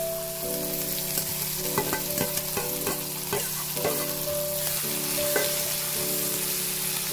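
Sliced onion sizzling in hot coconut oil in an iron pan, stirred with a perforated steel spatula that clinks and scrapes against the pan several times.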